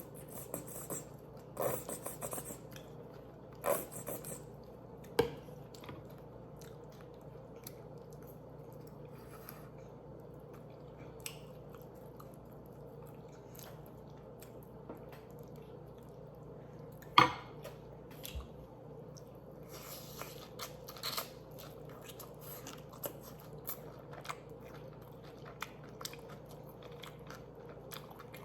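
Close-miked chewing and mouth sounds of a person eating, with scattered wet clicks and smacks and one sharper click a little past halfway.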